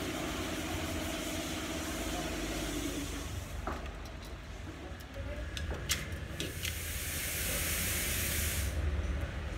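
Copper winding wire rustling and scraping against the steel stator of a three-phase pump motor as the old coils are pulled out by hand, with a few sharp metallic clicks in the middle, over a steady low hum.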